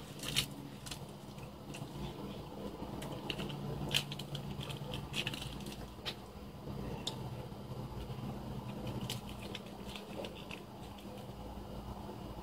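A person hurriedly chewing Milky Way candy bars: scattered mouth clicks and smacks over a steady low hum.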